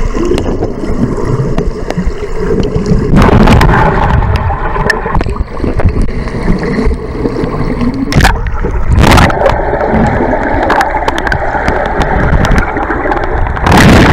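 Loud, close rushing and churning water on a water-park ride, with several sharp splashes or knocks against the microphone through the ride.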